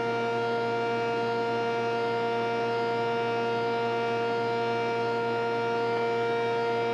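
Spindle shaper running with its raised-panel cutter spinning and the power feeder on: a steady, unchanging hum made of several held pitches.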